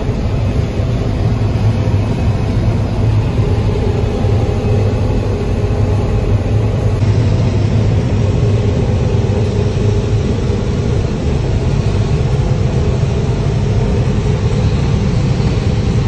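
Combine harvester running steadily while harvesting corn, heard from inside the cab: a constant low engine and machinery hum.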